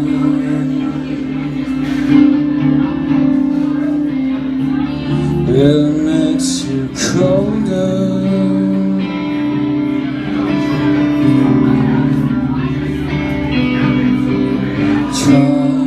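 Live band playing: amplified guitars sustaining over bass, with a few sharp hits across the top, around 6.5 s, 7 s and near the end.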